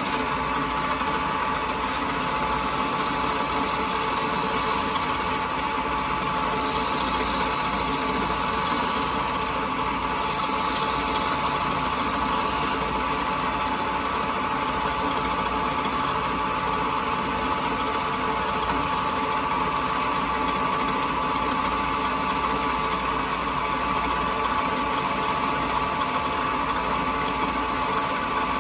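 Wood lathe running steadily with a constant high hum, while a turning chisel shaves a spinning pine blank.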